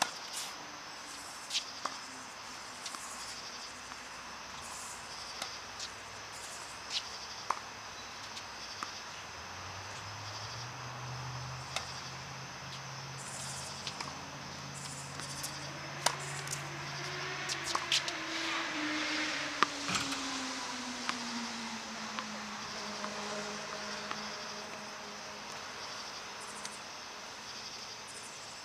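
Insects chirping in an even, pulsing rhythm with a few scattered sharp clicks. About a third of the way in, a vehicle engine passes, rising in pitch, getting loudest around two-thirds through, then falling away.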